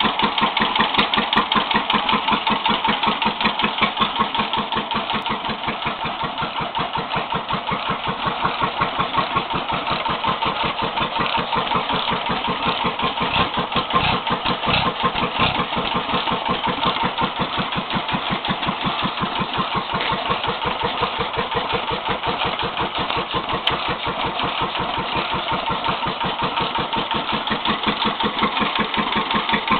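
Vintage stationary engines running steadily with a fast, even beat: a W2 engine turning an early-1900s Forgues Cyrano stationary engine to run it in. A few heavier low thumps come about halfway through.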